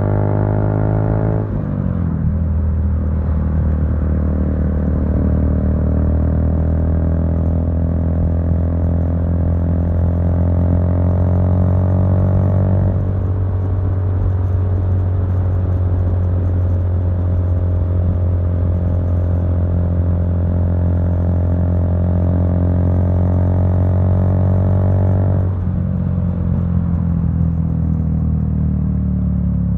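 Honda Grom's 125 cc single-cylinder engine running through a Zoom full-loop stainless steel aftermarket exhaust while riding in traffic, heard from a phone inside a leather jacket pocket. The engine note drops sharply about a second and a half in and again near the end, and climbs slowly in between.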